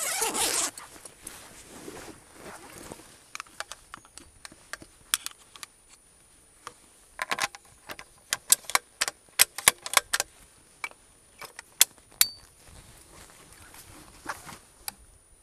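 Hunting gear being handled in a hatchback's boot: a brief loud rustle at the start, then a run of sharp clicks and light knocks, busiest about halfway through.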